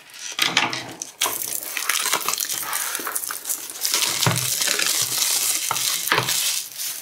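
Plastic shrink-wrap crinkling and crackling as it is cut with scissors and pulled off a cardboard box, with many small clicks through the crackle.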